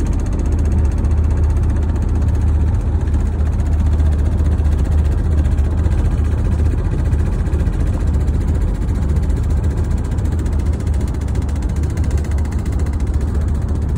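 Loud, steady cabin drone of an SUV cruising at about 75 mph on the highway: a deep low rumble of road and engine noise with no let-up. The vehicle is being driven on bent frame rails and improperly welded structural supports left by a faulty collision repair.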